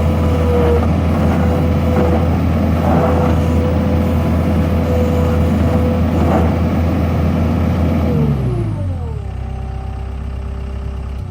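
2006 Takeuchi TL140 compact track loader's diesel engine running steadily at high throttle with a steady whine, then throttling back to idle about eight seconds in, the pitch dropping over about a second and the sound getting quieter.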